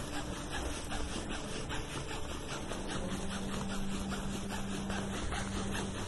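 Massage of a leg: quick, regular rubbing strokes, about five or six a second, over a low steady hum.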